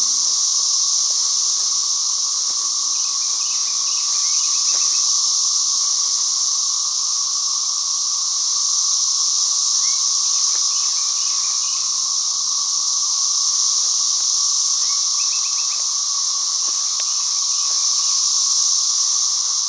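Loud chorus of many cicadas droning steadily without a break.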